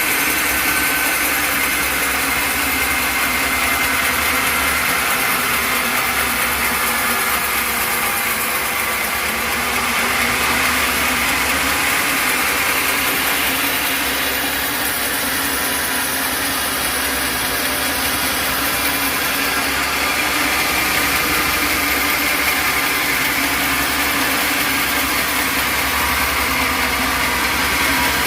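Sawmill machinery running with a steady engine drone.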